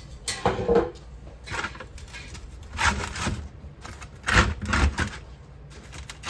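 Several short bursts of scraping and rustling, about four in all: hand tools and a small brush working at a Petrobond sand-casting mold.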